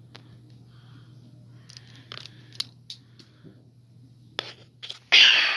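Small plastic clicks and taps of LEGO pieces being handled and pressed, scattered over a few seconds. Near the end comes a sudden loud rushing, hissing noise that fades slowly.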